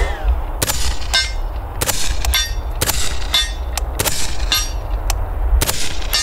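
Suppressed SIG MCX Rattler with an M13 suppressor firing about five spaced shots, each followed about half a second later by the clang of a distant steel target being hit, with a brief ringing tail.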